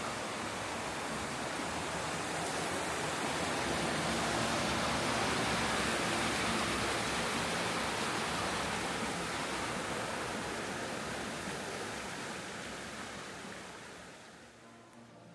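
Rushing water, a stream or small waterfall, making a steady hiss that swells toward the middle and fades away near the end.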